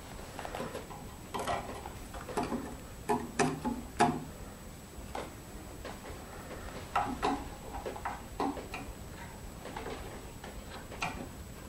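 Irregular light clicks and knocks of metal hand tools and wood being handled while dividers are set to a notch measurement, with a cluster of louder knocks about three to four seconds in.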